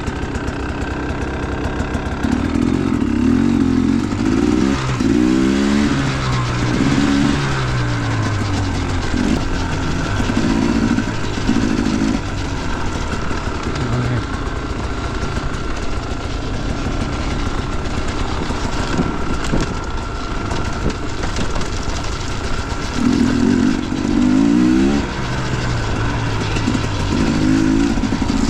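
Dirt bike engine running while riding, the throttle opening and closing so the revs climb and fall repeatedly, with hard bursts of acceleration a few seconds in and again near the end.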